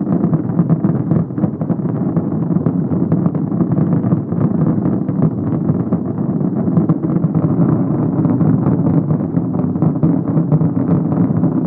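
Fireworks display at full barrage: a continuous rumble crowded with rapid pops and cracks, with no pause or let-up.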